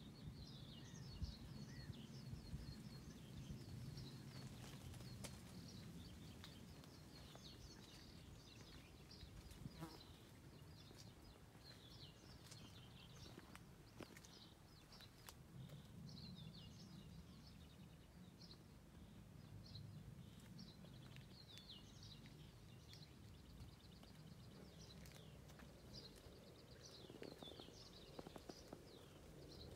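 Faint birdsong outdoors: small birds chirping and twittering in many short high notes throughout, over a low steady background rumble.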